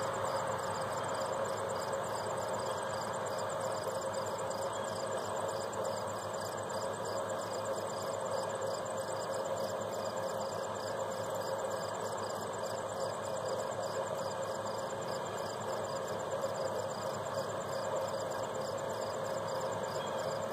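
Steady background hum of an engine or machinery, with a constant tone running through it and a fast, even pulsing high above.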